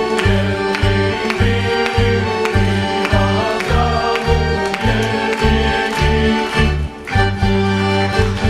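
Montenegrin folk dance music with a steady pulsing beat, the beat giving way to longer held notes near the end.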